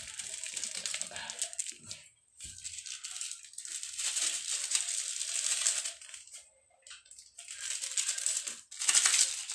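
Plastic instant-noodle seasoning sachets crinkling and rustling as they are handled and torn open, in three bursts with short pauses between.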